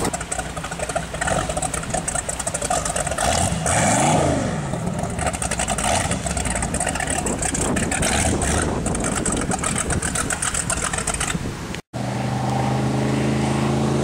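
Motorboat engine running under rough wind and water noise, its pitch rising and falling briefly about four seconds in. After a cut near the end, a steady engine hum.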